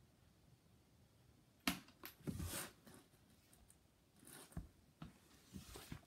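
Quiet room with a few sharp clicks and short rustling handling noises: a sudden click about a second and a half in, a brief rustle just after it, then scattered clicks and another short rustle near the end.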